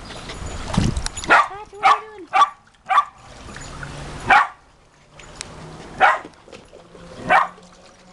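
Small dogs barking in short, sharp barks, about seven spread unevenly through a few seconds.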